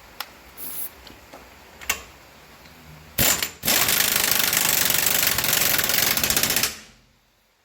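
Impact wrench running the new rear wheel hub's centre nut down tight. It gives a short burst about three seconds in, then hammers steadily for about three seconds and stops.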